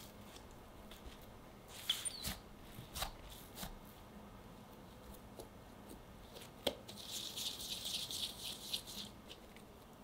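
Hands working a soft ball of yeast doughnut dough on a silicone mat: scattered soft taps and pats as it is turned and set down, then a couple of seconds of crackly rubbing as the dough is pinched closed and rounded between the fingers.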